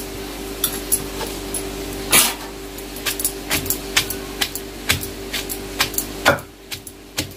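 Wooden pestle striking in a stone mortar, pounding chopped onions into a coarse dry spice masala. The strikes come irregularly, two or three a second, and ease off briefly near the end. The onions are being crushed only coarsely, not to a smooth paste.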